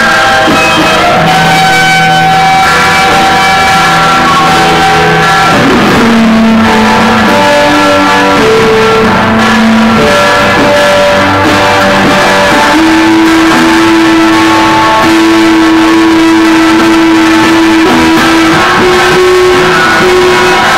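Loud live amplified music, guitar-led, made of long held notes layered over one another, their pitches shifting every few seconds.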